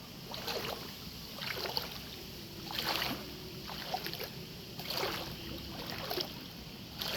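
Floodwater sloshing and splashing in repeated swishes, one every second or two.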